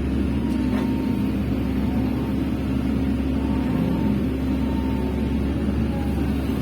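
Hydraulic excavator's diesel engine running steadily under work, with a faint whine from the hydraulics now and then and a few light knocks.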